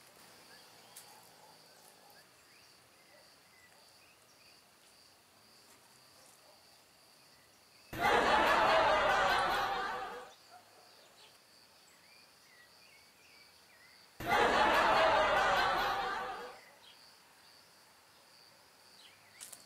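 Two bursts of crowd laughter, a laugh track, each about two seconds long and starting suddenly, the second about six seconds after the first. Between them only faint outdoor background with a thin steady high hiss.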